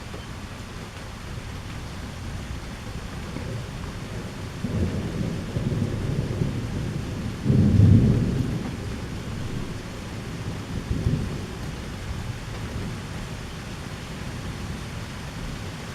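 Thunder rumbling through steady rain, in rolling swells that peak loudest about halfway through and then die away.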